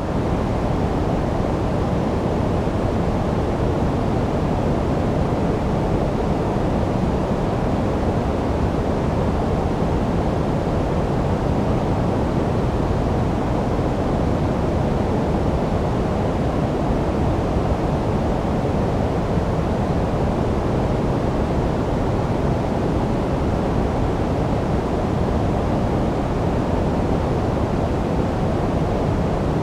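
Steady, unbroken synthetic noise for sleep, a deep hiss with most of its weight in the low range and little treble, closer to brown or pink noise than to bright white noise.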